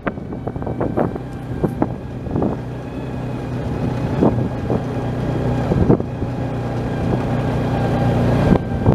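Vehicle engine running at a steady low speed while driving over a rough dirt track, growing gradually louder, with scattered knocks and rattles as the vehicle bounces.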